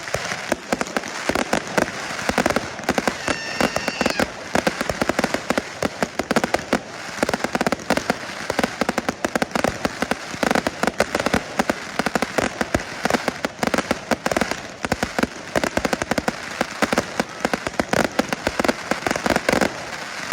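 Fireworks crackling and popping in a dense, continuous volley, many sharp cracks a second.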